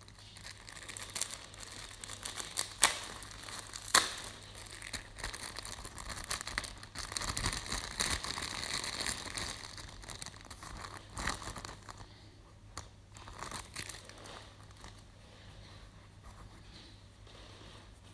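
Clear plastic bag crinkling and crackling as it is handled and opened, with two sharp cracks about three and four seconds in. The crinkling dies down to a few faint rustles over the last several seconds.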